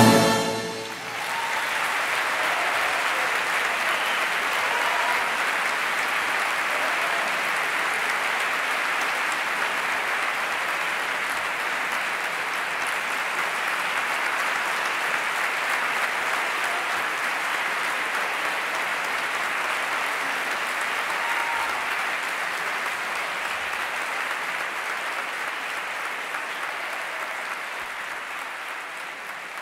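The band's final chord dies away in the first second, then an audience applauds steadily, the applause slowly fading near the end.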